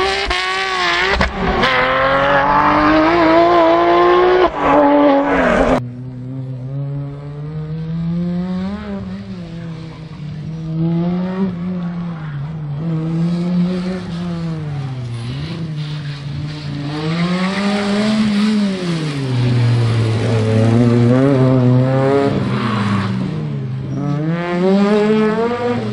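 Rally car engines at full throttle on a gravel stage. For about the first six seconds a Porsche 911 GT3's flat-six revs hard with its pitch climbing; then, after a sudden cut, other rally cars' engines rise and fall again and again as they accelerate, lift and shift gears through the corners.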